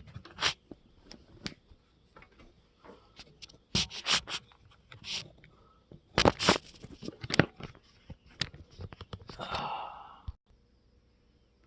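Irregular knocks, clacks and scrapes from handling a wooden bowl blank and a lathe screw chuck by hand, with no machine running. There is a rough scraping stretch near the end, then it goes quiet.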